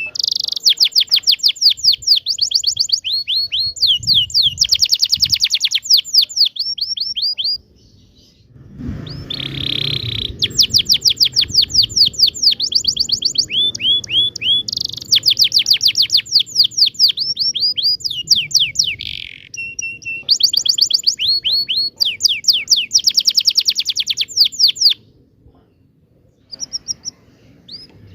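Domestic canary singing a long song of rolling trills: fast runs of repeated downward-sweeping notes, phrase after phrase with short breaks between them. The song stops for about three seconds near the end.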